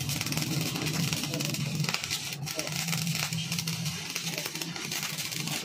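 Stick-welding arc crackling steadily as a bead is run on a steel axle shaft, with guitar music playing over it.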